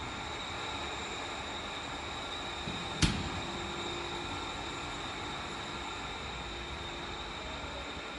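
Steady running noise of a 5-gallon barrel filling line, with a high whine over a low hum. About three seconds in comes one sharp bang, the machine's glass guard door being shut.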